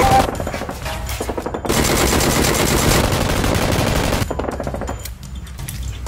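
Rapid automatic gunfire, a machine-gun sound effect: a short burst, a brief break about a second in, then a longer continuous burst that cuts off about four seconds in.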